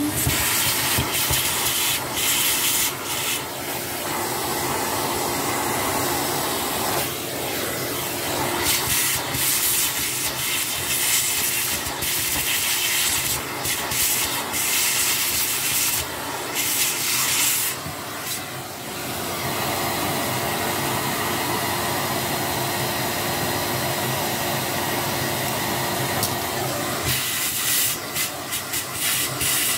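A vacuum cleaner running steadily, its hose nozzle hissing as it sucks dirt off a vacuum brush roll's end cap and the machine's base. The air noise changes several times as the nozzle is moved over and against the parts.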